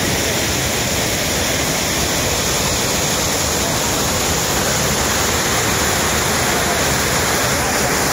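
Water gushing out of a dam's outlet tunnel in a powerful jet, down a concrete chute and churning in the pool below. It is a loud, steady rush of water and spray.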